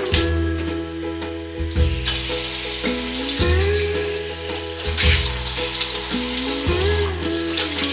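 Background music with bass notes and a gliding melody, joined about two seconds in by a steady hiss like running or splashing water.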